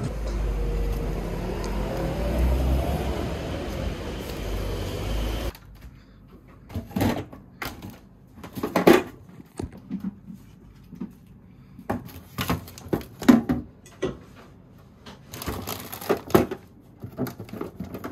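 A steady low rumble for about the first five seconds, then, after a sudden cut, a kitchen freezer drawer being handled: scattered knocks, clunks and rustles as drink cans are set down in the drawer beside a plastic ice-cube tray.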